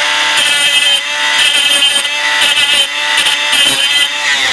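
Small handheld rotary power tool running against metal screw heads, abrading them clean so they will take solder. A steady motor whine that sags slightly now and then under pressure, with bursts of high grinding hiss as the abrasive bites.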